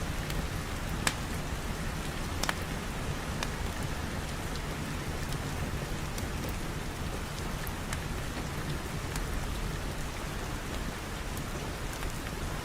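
Steady rain, with a few sharp clicks scattered through it.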